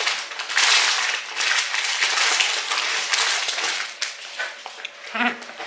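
Chip bag crinkling loudly as it is folded and closed, a dense crackle that thins out after about four seconds.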